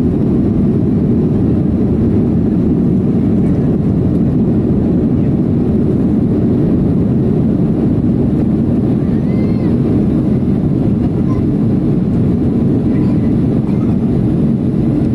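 Steady cabin noise of a jet airliner in its climb after take-off: a constant low rumble of engines and rushing air, heard from inside the cabin.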